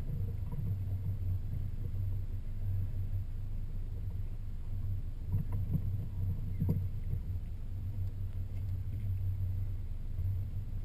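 Steady low hum of a small boat's motor as the skiff creeps forward, with a couple of light knocks about halfway through.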